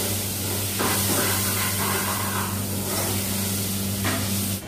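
Steady hiss of kitchen background noise with a low, even hum underneath, cutting off abruptly near the end.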